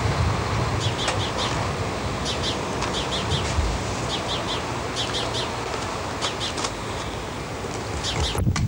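A small bird chirping in quick runs of three or four high notes, repeated every second or so, over a steady background hiss and rumble. The chirping stops just before the end.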